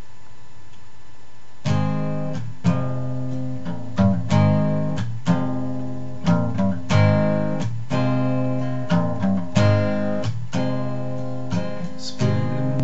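Guitar strumming chords, the instrumental introduction of a song, starting about two seconds in and going on steadily with regular strokes.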